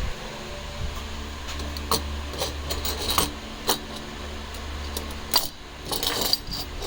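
Small hard parts and tools being handled, giving a scatter of short, sharp clicks and clinks over a steady low hum.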